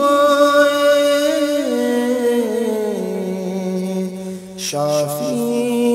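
Male voice singing a naat in long, drawn-out notes that step down in pitch, with a short break about four and a half seconds in before the next phrase begins.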